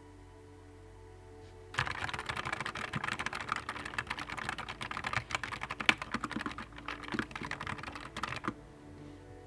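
Rapid typing on a Nuphy Air 75 V2 low-profile mechanical keyboard: a fast, continuous run of key clicks that starts about two seconds in and stops about a second before the end.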